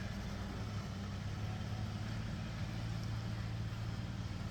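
1995 Acura Legend LS coupe's 3.2-litre V6 idling steadily, a low even hum.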